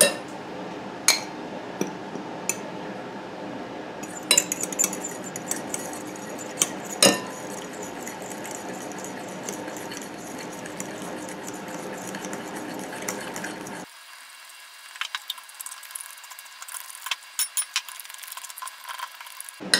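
Metal fork clinking and scraping against a glass bowl while flour and water are stirred into dough: a few separate taps at first, then a busy run of quick clinks in the last few seconds.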